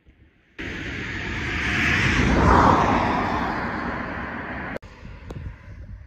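A road vehicle passing close by, its tyre and engine noise swelling to a peak and then fading with a falling pitch. It begins and cuts off abruptly, then gives way to quieter outdoor background with a few light clicks.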